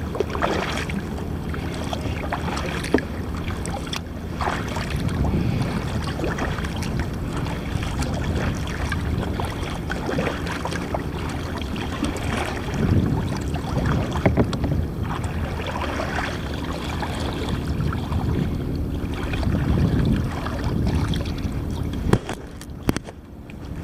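Wind buffeting the microphone at the waterline, with water lapping against a kayak's hull; the low rumble swells and eases irregularly.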